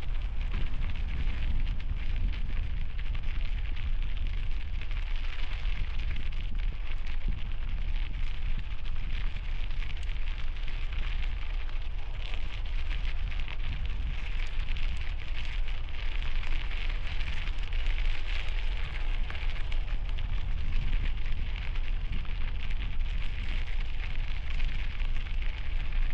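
Strong gusty wind buffeting the helmet-mounted microphone of an Insta360 X5 camera while cycling into a headwind: a steady heavy low rumble under a crackly hiss.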